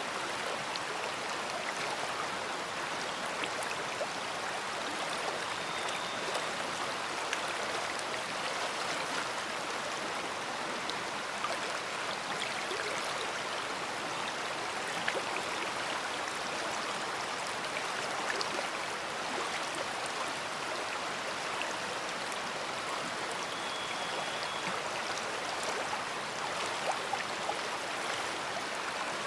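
A big river flowing, a steady rushing of water with no change in level.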